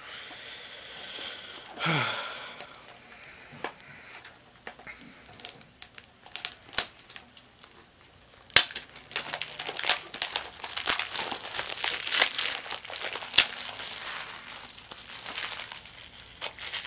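DVD packaging being torn open and crinkled by hand: a run of crackles, rustles and clicks that grows busier partway through, with one sharp crack about eight and a half seconds in.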